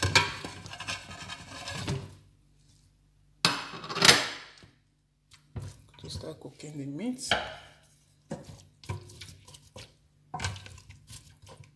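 Meat and fish pieces tipped off a plate into a stainless steel pot, then turned with a wooden spoon: a series of separate clatters, knocks and scrapes against the pot, with short pauses between them.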